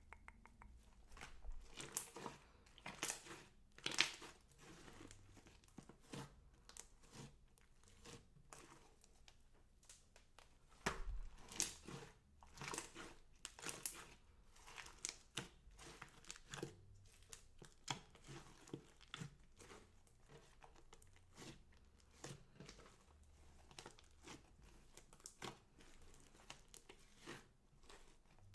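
Faint, irregular crinkling and crackling with scattered sharp clicks, from hands handling crinkly slime-making materials.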